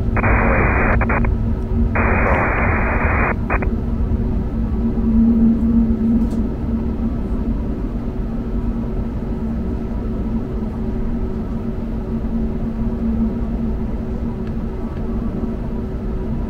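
Steady engine and airflow noise inside the cabin of an Airbus A321neo airliner in flight, with a low, even hum under a constant rush. In the first few seconds, two short bursts of thin, narrow-sounding air traffic control radio come through on top of it.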